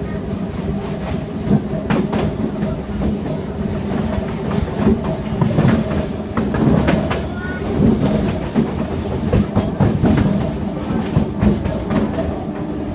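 Local passenger train running on the rails, heard from inside the coach: a steady rumble with irregular clicks and clatter as the wheels pass over the track.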